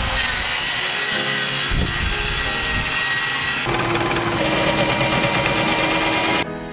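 Cordless drill boring into a wooden board, running steadily at speed. The sound changes about halfway through and cuts off suddenly near the end.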